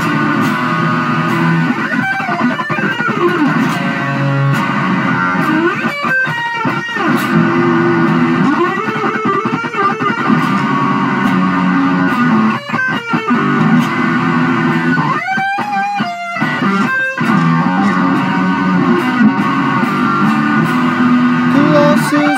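Psychedelic rock instrumental passage led by electric guitar, its notes sliding and gliding in pitch at several points.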